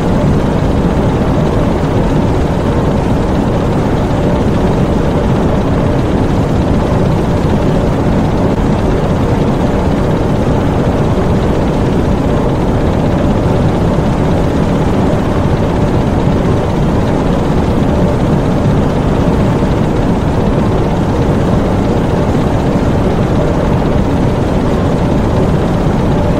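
Diesel engines of a U-boat's engine room running steadily: a loud, unchanging low drone with a faint steady hum in it.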